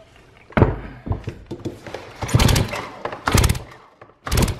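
Recoil starter of a Stihl MS290 chainsaw with a 390 top end pulled several times, about a second apart, the engine spinning over without firing. Compression is leaking out through the hole of the broken decompression valve, so there is not nearly enough compression to start.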